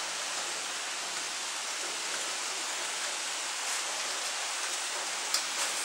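Steady rain falling in a thunderstorm, an even hiss with no thunder, and one brief click near the end.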